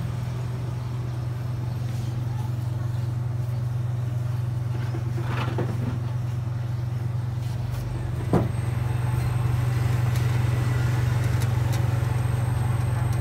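Refrigeration compressor of a three-door showcase fridge running with a steady low hum while the system is being charged with refrigerant after a capillary tube replacement. A sharp click comes a little past the halfway point, after which the hum is slightly louder.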